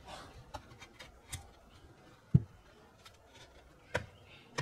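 Plastic clicks and knocks as the Tronsmart T6 Pro speaker's grille and housing are pressed back together by hand: a few sharp clicks and one louder dull thump about halfway through.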